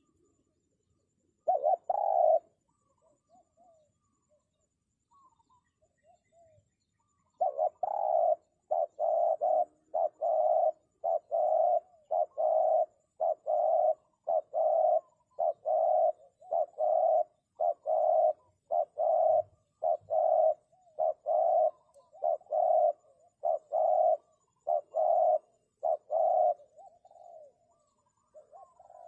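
Spotted dove cooing: one short call, then a long, even run of low coos, a bit more than one a second, that stops shortly before the end.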